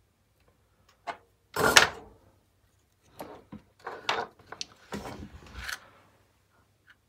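Handling noise from a small black plastic speaker housing and its circuit board: a click about a second in, a louder knock and scrape just after, then a few seconds of scattered clatter and rubbing as the parts are moved about.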